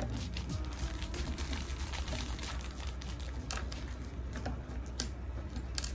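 Small clear plastic bags crinkling and crackling as they are handled and opened, with scattered light clicks from small plastic figure parts.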